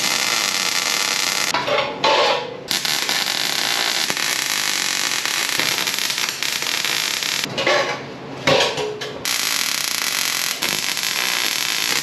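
Electric welding arc crackling and hissing as beads are run on a stainless steel beer keg. The arc stops briefly about two seconds in and again for about a second and a half near eight seconds in, with small knocks of handling in the gaps.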